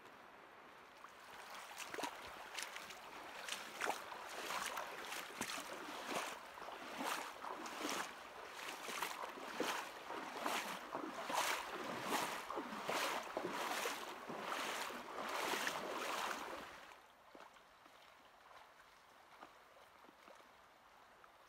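A person moving through deep river water, splashing in a steady rhythm of nearly two strokes a second; the splashing stops near the end.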